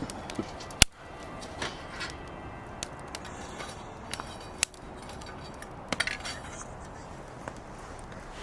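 Firewood burning in a fire pit, crackling with irregular sharp pops over a low steady hiss; the loudest pop comes about a second in.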